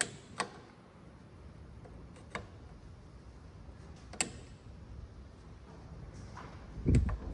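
Sharp metallic clicks of diagonal cutters prying a cotter pin out of the front axle nut, four separate clicks spread over several seconds, with a low thump near the end.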